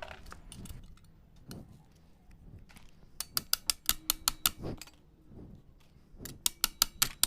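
Rapid, evenly spaced metal clicking while a Yamaha NMAX CVT rear pulley is put back together, in two runs of about a second and a half each, about eight clicks a second, with faint handling of parts before them.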